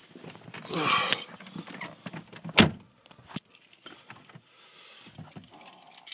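Car keys jangling and clicking in the hand inside the car, with one sharp knock about two and a half seconds in.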